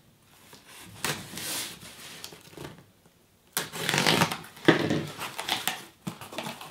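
A small blade scraping and slicing along the packing tape of a cardboard box, then the cardboard flaps rustling and scraping as they are pulled open, with a short pause about halfway.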